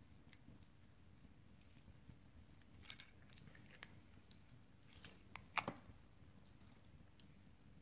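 Near silence with a low room hum, broken by a few small sharp clicks and taps as a phone and a small screwdriver are handled on a worktable. A handful come about three to four seconds in, and the loudest cluster comes a little past five seconds.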